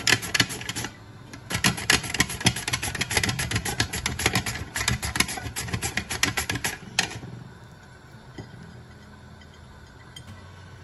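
Raw pumpkin being grated on a hand grater: quick, repeated rasping strokes, several a second, that stop about seven seconds in, leaving a faint low hum.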